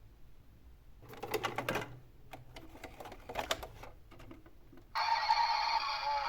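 Small plastic toy parts clicking and rattling in irregular bursts. About five seconds in, a louder, steady electronic toy sound with several held tones switches on.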